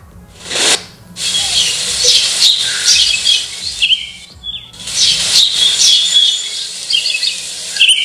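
A Fansbe clock radio's small built-in speaker playing a nature-sound track of birds chirping over a steady hiss, its volume turned down and back up with the side switch, so it drops away briefly twice.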